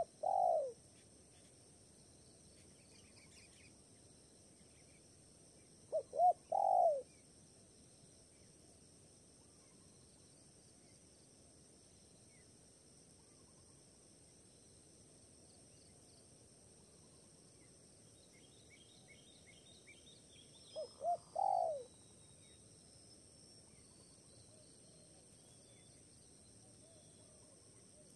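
Spotted dove cooing its three-note call, two short notes and then a longer drawn-out one, three times with long pauses between. A steady high insect drone and a few faint small-bird chirps run underneath.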